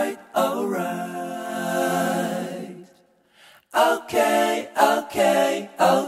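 Music led by a singing voice: one long held note, a brief break about three seconds in, then a string of short sung phrases.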